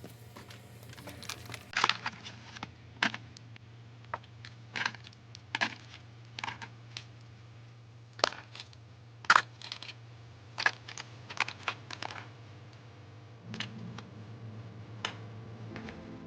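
Irregular sharp clicks and clacks of metal mortise lock cylinders being handled and sorted, over a steady low hum. Faint music comes in near the end.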